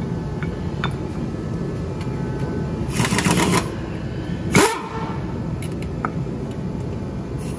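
Metal engine parts and tools being handled during a diesel engine rebuild: scattered light clicks, a short noisy burst about three seconds in and a louder knock about a second and a half later, over a steady low background noise.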